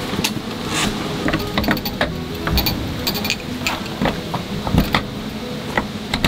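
Irregular clicks, taps and light knocks of gear being handled, several a second, over a steady low hiss.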